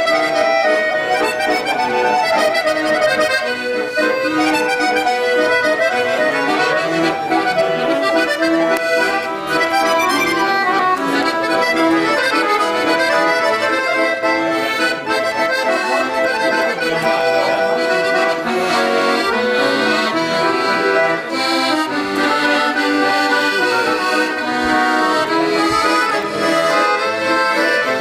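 Two accordions playing a tune together: a large piano accordion and a smaller second accordion, held notes and chords running steadily without a break.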